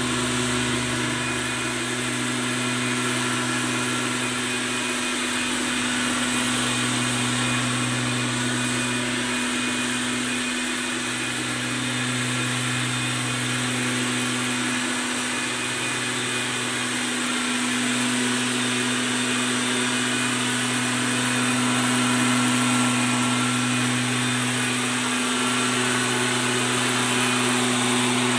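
Backpack leaf blower's small petrol engine running steadily at high speed, with the rush of air from the blower tube.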